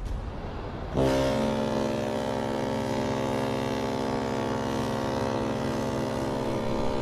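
The Queen Mary 2's ship's horn sounds one long, deep, steady blast that starts suddenly about a second in.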